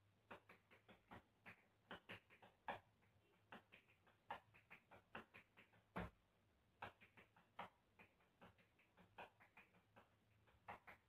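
Tap shoes striking a tiled floor in hoofing-style rhythm tap: quick clusters of sharp taps with short gaps between phrases, and one heavier stamp about six seconds in.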